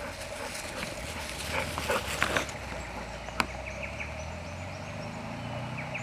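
Dogs moving about on a grass lawn close to the microphone: scattered short noises in the first half and one sharp click about three and a half seconds in, over a low steady rumble.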